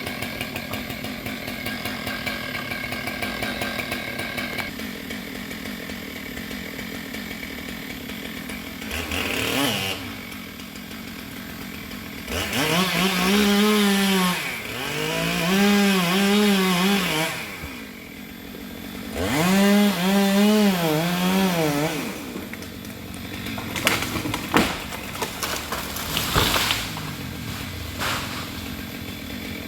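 Stihl MS 462 chainsaw running at low revs, then opened up in three loud stretches of a few seconds each, its pitch wobbling up and down as the chain cuts into sengon wood. It drops back to low revs, with a few sharp knocks near the end.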